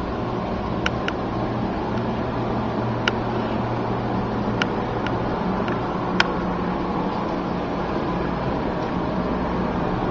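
Steady room hum and hiss, with a handful of short sharp clicks scattered through the first six seconds.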